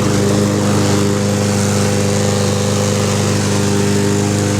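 Self-propelled walk-behind lawn mower engine running steadily at an even pitch.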